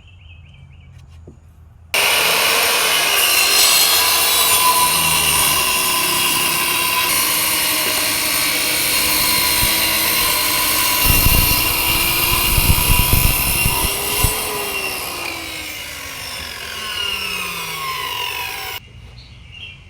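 Electric power saw cutting through a wooden board, with a loud motor whine over the cutting noise. It starts abruptly about two seconds in, its pitch drops over the last few seconds, and it cuts off sharply near the end.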